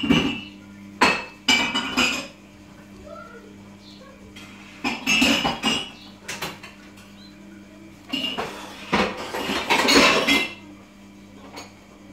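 A week-old pigeon chick being syringe-fed in its twig-lined plastic tub: about four bursts of rustling and clattering as it flaps its wings against the twigs and tub, over a steady low hum.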